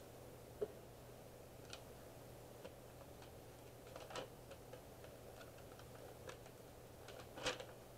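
Faint, irregular clicks and light taps of small items being handled, over a low steady hum; the loudest taps come about half a second in and near the end.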